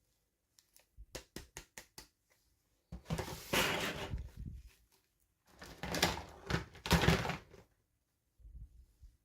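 Toy packaging being handled and opened: a few light clicks, then two spells of rustling, each about two seconds long.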